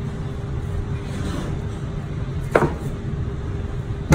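Knife cutting a bone-in rib steak on a cutting board, with a sharp knock about two and a half seconds in and a louder one at the very end, over a steady low background rumble.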